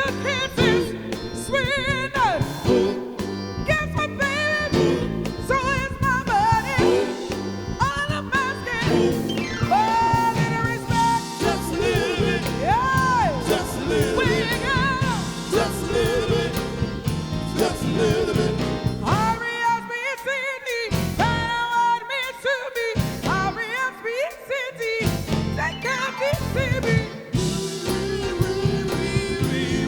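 Live soul band music: a full band playing, with a wavering lead melody line. The bass and drums drop out for three short breaks about twenty seconds in.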